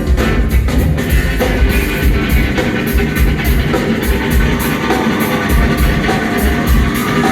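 Rock band playing live, with a drum kit keeping a steady beat of cymbal strokes under bass and guitar.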